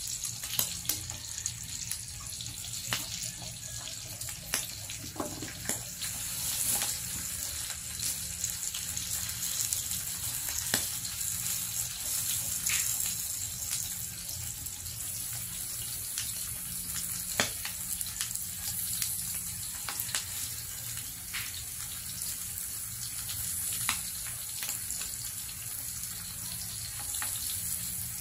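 Pork belly and ham slices sizzling in a grill pan: a steady hiss of frying fat, broken by scattered sharp pops of spattering grease.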